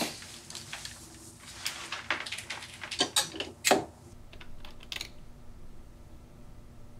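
A series of irregular small clicks and taps, with a few louder knocks about three to four seconds in, then only faint taps.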